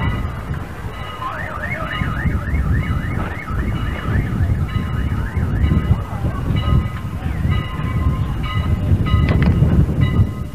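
A warbling siren-like tone, its pitch swinging up and down about four times a second for around three seconds, over a steady low rumble.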